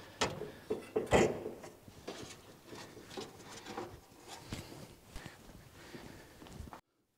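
Irregular knocks, clunks and taps of sheet-steel chassis rail and inner fender panels being pushed and settled into position by hand. The loudest clunk comes about a second in, and the sound cuts off abruptly near the end.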